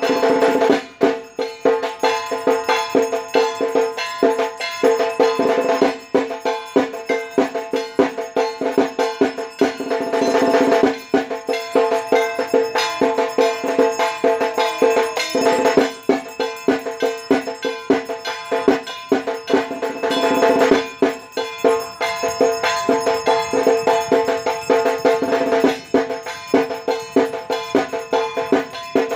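Music with fast, busy percussion over sustained pitched tones.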